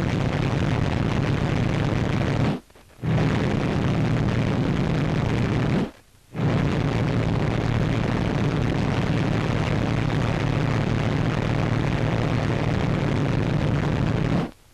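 Boeing 377 Stratocruiser's four Pratt & Whitney Wasp Major radial piston engines running, a steady heavy roar. It is broken twice by sudden, brief dropouts to near silence on the old film soundtrack, about three and six seconds in.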